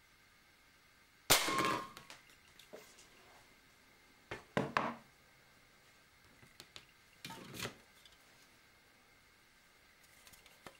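A single sharp shot from a BSA Magnum .177 air pistol, the pellet striking an aluminium drink can, with a brief ring about a second in. Then the can is picked up and handled, with a few knocks and scrapes on cardboard.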